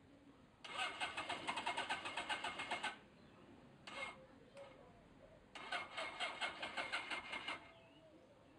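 1980 Suzuki GS1100E's inline four-cylinder engine being cranked by its electric starter in quick, even pulses, in two bursts of about two seconds with a short tap between, without catching.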